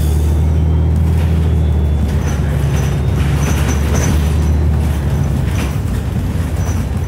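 City transit bus running, heard from inside the cabin: a steady low engine drone, with scattered clicks and short high squeaks over it.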